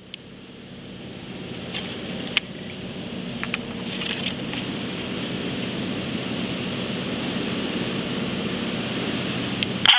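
Vehicle engine running steadily with a low hum, slowly growing louder, with a few faint clicks.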